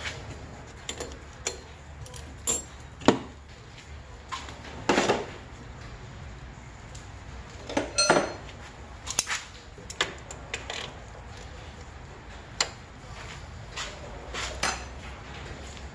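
Scattered metal clinks and clanks of hand tools and suspension hardware being handled during a shock absorber fitting, with several louder knocks spread through.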